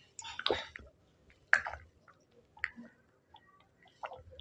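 A man gulping vodka straight from a glass bottle: separate swallows come about once a second, with near silence between them.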